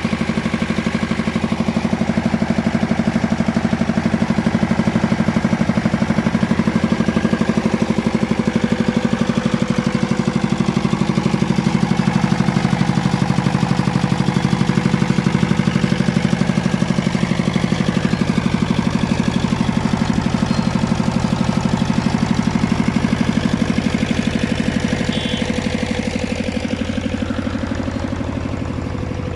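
Two-cylinder diesel generator engine running steadily, with a rapid, even firing beat. It eases off slightly near the end.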